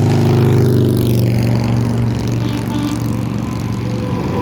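Engine drone: a steady low hum with a stack of overtones, loudest about half a second in and easing slightly after.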